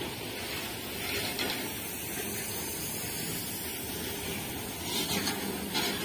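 Covered goods wagons of a freight train rolling past: a steady hissing rumble of steel wheels on the rails, with a few brief louder knocks about a second in and near the end.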